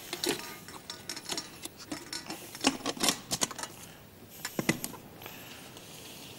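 Black plastic lid of a salad spinner being fitted and pressed onto its stainless-steel bowl: an irregular scatter of clicks, taps and knocks of plastic on metal.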